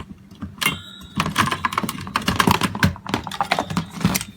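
Rapid clicking and light knocking of a screwdriver and hands working at the screws that hold a Pentium 4 heatsink and fan assembly to a motherboard. A short metallic ring sounds about half a second in.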